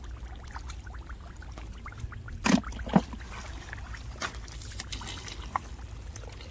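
Hands picking snails out of shallow wet mud: small wet squelches and clicks, with two louder wet knocks about two and a half and three seconds in.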